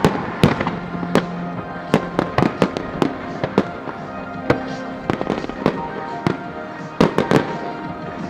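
Fireworks display: a rapid, irregular series of bangs and crackling reports, with a cluster of loud bangs about seven seconds in, over accompanying music.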